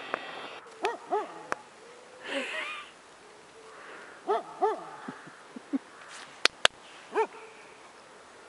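A dog barking at a wrapped hay bale: two quick barks about a second in, two more past the middle, and a single bark near the end. Two sharp clicks come just before the last bark.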